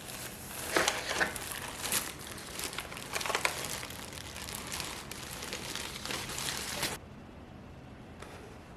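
Plastic packaging being handled, crinkling and rustling with sharp crackles, until it cuts off abruptly about seven seconds in.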